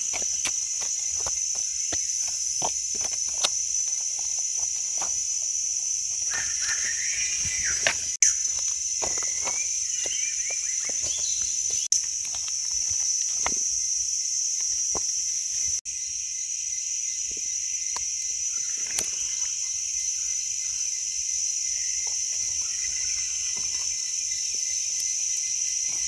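Steady high-pitched chorus of forest insects, with scattered close clicks, snaps and rustles throughout.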